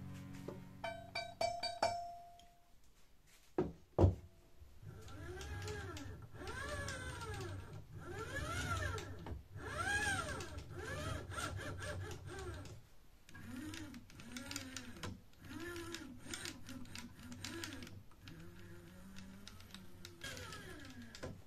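A few metallic tool clinks and one sharp knock about four seconds in. Then the wooden Y-carriage of a homemade 3D printer is pushed back and forth by hand, making a whirr that rises and falls in pitch with each stroke, with quicker, shorter strokes from about thirteen seconds.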